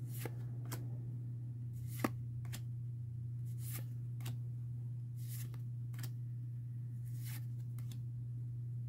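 Pokémon trading cards being handled and laid out: a dozen or so brief paper swishes and slides, with one sharper tap about two seconds in, over a steady low hum.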